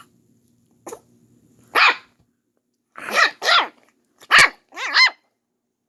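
A dog barking in short, separate barks, about six of them, sparse at first and then coming in quicker pairs. The last barks are higher and more pitched, almost yappy.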